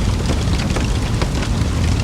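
Campfire burning, with a steady low rumble under scattered crackles and pops from the burning wood.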